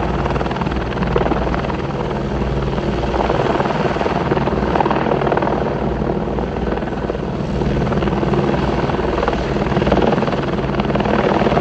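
Helicopter hovering overhead, its rotor chop and engine running steadily and loud throughout.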